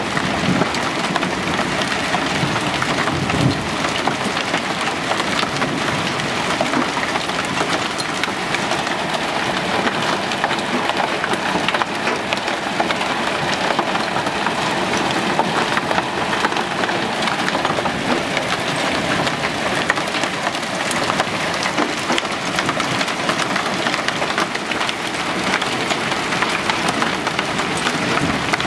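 Small hail falling steadily on a wooden deck and plastic play equipment: a dense, even rattle of countless tiny impacts.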